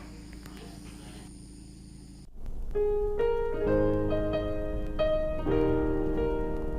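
Background piano music comes in about two seconds in, with a slow run of held notes, after a quieter stretch of steady low hum.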